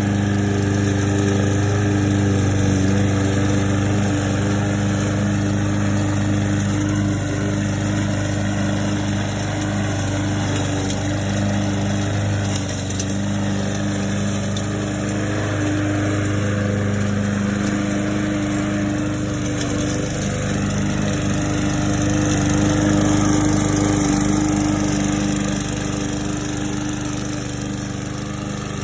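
A 125cc walk-behind petrol lawn mower engine running steadily, with a small shift in its note about two-thirds of the way through.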